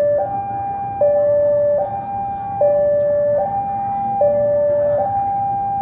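Railway level-crossing warning alarm sounding its electronic two-tone signal, a higher and a lower tone alternating steadily, each held just under a second. It warns that a train is approaching the crossing.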